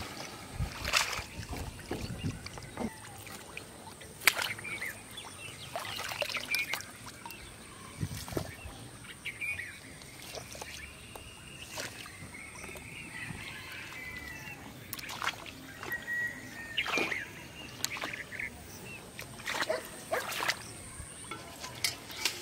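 Sharp splashes and flicks at irregular intervals as bamboo fishing poles lift hooks and floats out of a shallow muddy pool, with birds calling faintly in the background.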